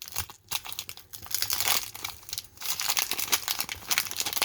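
Crinkling and rustling of a 1991 Topps wax pack wrapper and the cards being handled, an irregular crackle with brief pauses about half a second, one second and two and a half seconds in.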